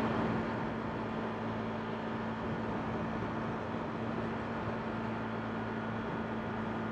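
Steady driving noise from inside a moving vehicle: an even road-noise hiss with a constant low engine hum.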